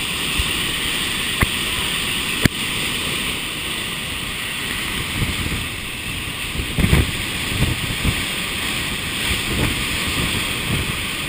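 Typhoon wind and driving rain blowing hard and steadily, with gusts buffeting the microphone in the second half. Two sharp clicks in the first few seconds.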